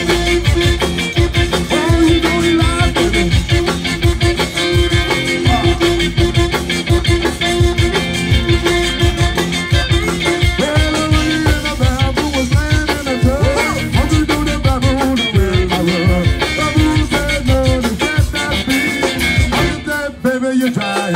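Live zydeco band playing: the accordion holds one long note over a steady drum beat with guitar, and from about halfway a man sings lead over the band. The music drops out briefly near the end.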